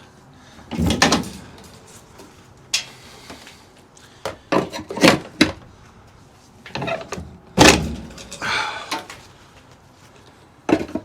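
A string of separate knocks and clanks from handling the semi truck and trailer hardware, with the loudest knock about two-thirds of the way through.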